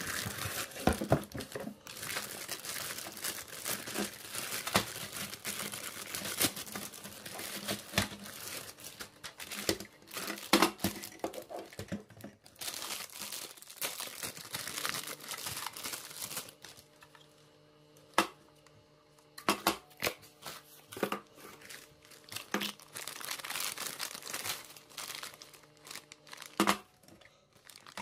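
Plastic bags and plastic wrap crinkling and tearing as a toy is unwrapped by hand. About two-thirds of the way through there is a quieter stretch with a few sharp clicks, then the crinkling resumes.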